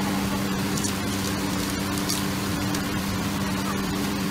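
Steady roar of a high-flame gas wok burner and a large kitchen fan, with a constant low hum, while a metal spatula scrapes and clinks against the wok during stir-frying.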